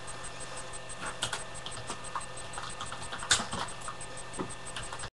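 Irregular clicking of typing on a computer keyboard, with one sharper click about three seconds in.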